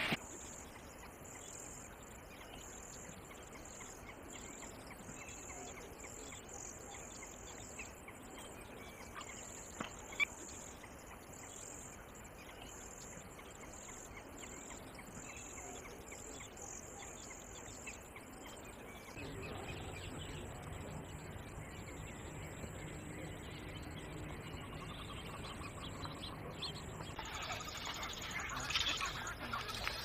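Quiet outdoor field ambience: a steady high-pitched trill that pulses on and off, with faint scattered bird chirps. A low hum joins about two-thirds of the way through.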